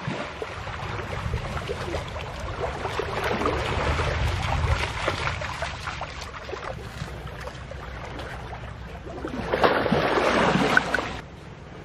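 Shallow water rushing over rocks and splashing as feet wade through it, with many small splashes. Near the end there is a louder burst that cuts off suddenly.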